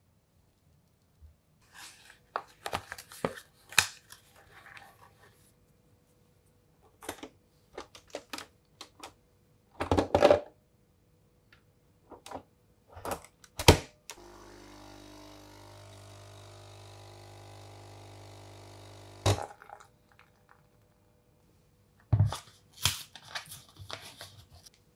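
Light clicks and knocks of kitchen handling, with a capsule coffee machine's lever shut with two firm clunks; the machine's pump then hums steadily for about five seconds while it brews, stopping with a click. Light clinks and taps follow near the end.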